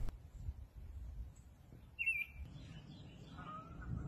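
A songbird calling from a tree: one short, sharp chirp about halfway through, then faint lower whistled notes near the end, over a low outdoor rumble.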